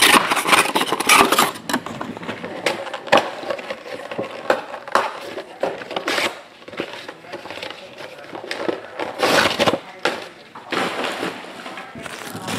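Crinkling and rustling of plastic wrap and cardboard packaging being handled, with scattered clicks and knocks. The heaviest crackling is in the first second or so, with more bursts near the end.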